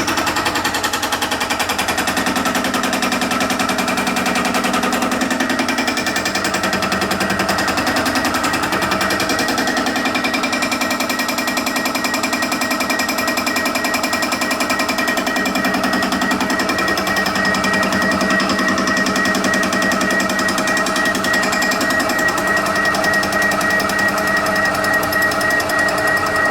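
TOS milling machine running with a CBN-tipped flycutter taking a light pass across a warped exhaust manifold's flange face. The cutter's interrupted cut makes a fast, even hammering over the steady whine of the spindle gearing.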